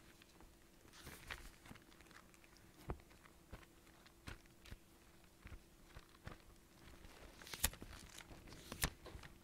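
Thin Bible pages being leafed through and turned, soft rustles and small clicks, with two sharper page snaps near the end.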